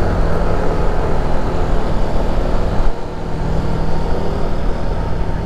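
Yamaha NMAX 155 scooter's single-cylinder engine running steadily under way, with wind and road noise over it. The sound dips briefly about three seconds in.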